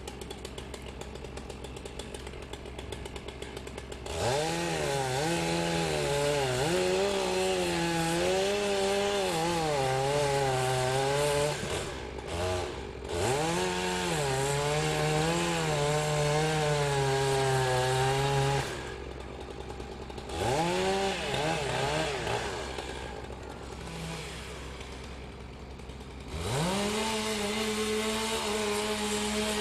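Chainsaw cutting into a beech tree. It idles, then revs up about four seconds in and runs at high revs with its pitch dipping and wavering under the load of the cut. It drops back to idle twice, with short blips of throttle in between, and near the end revs up again and holds a steady high pitch.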